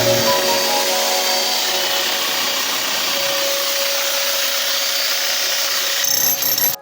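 Power saw cutting concrete: a steady, rasping cutting noise with a faint whine running through it.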